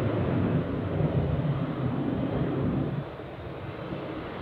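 Boeing 737 freighter's jet engines at takeoff power during the takeoff roll, a steady rumble that eases a little about three seconds in.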